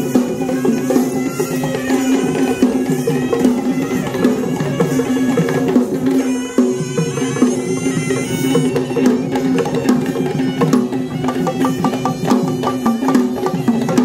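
Kandyan drums played by marching drummers, with a reedy wind instrument holding a steady drone and a wavering melody. The drum strokes come thicker and more prominent in the second half.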